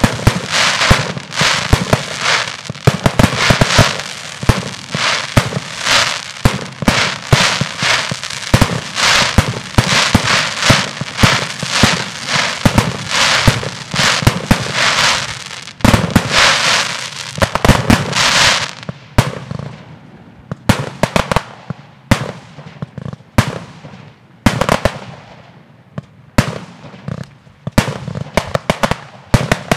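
Fireworks display: aerial shells launching and bursting in a dense, overlapping run of rapid bangs. About two-thirds of the way through it thins out into separate bangs, each with a fading tail.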